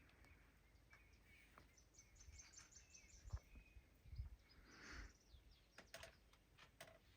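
Faint outdoor ambience: soft high bird chirps, a few scattered small clicks, and a couple of dull low thumps.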